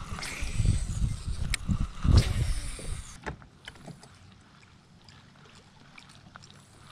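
Wind buffeting the microphone as an uneven low rumble, with a few sharp knocks, for about the first three seconds; then much quieter.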